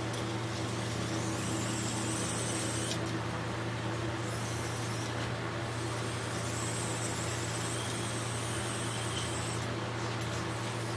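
Small electric drive motor of a toy RC car whirring in spurts as it drives and turns on concrete, cutting out briefly a few times, over a steady low hum.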